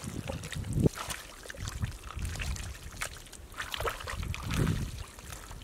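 Wet mud squelching and muddy water trickling and sloshing as hands and feet work through a shallow mud pool. Scattered small splashes and sharp wet smacks are heard throughout.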